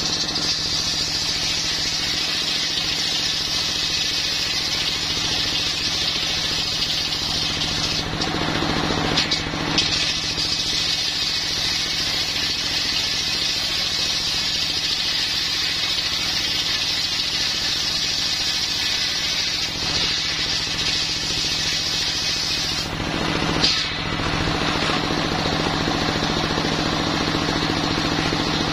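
Homemade circular sawmill blade ripping lengthwise through a coconut-wood log, with a high steady cutting whine over the steady running of the stationary diesel engine that drives it. The cut eases briefly twice, about a third of the way in and near the end.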